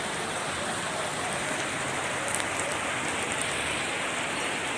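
Heavy rain falling steadily on a flooded market street, an even hiss of rain on water and hard surfaces.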